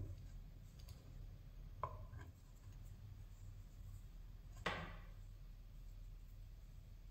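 Faint handling sounds of dough worked by hand on a wooden cutting board: a few light taps, the loudest a little before five seconds in, over a low steady hum.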